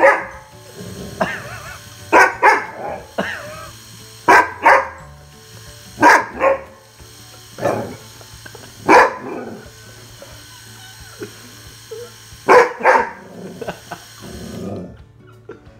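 A dog barking and yowling at an electric razor held to its face, in loud bursts with wavering pitch, often two in quick succession, about a dozen in all. A steady hum from the running razor lies beneath.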